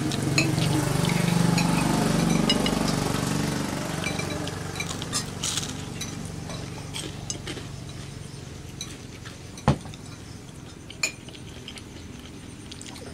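Spoons and fingers clinking against ceramic plates, bowls and a plastic tub as people eat, with scattered small clicks and two sharper knocks in the second half. A low rumble fades out over the first few seconds.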